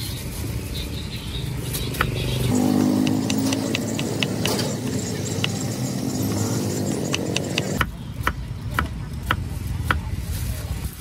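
A large knife chopping peeled fruit on a wooden chopping block, a series of sharp knocks, about two a second near the end. A motorbike engine runs past from about two and a half seconds in until nearly eight seconds in, loudest near its start.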